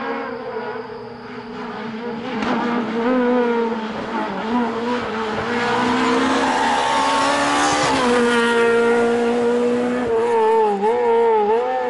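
Renault Clio R3 rally car's engine revving hard under acceleration, its pitch repeatedly climbing and dropping with the gear changes. It grows louder about two seconds in as the car comes closer.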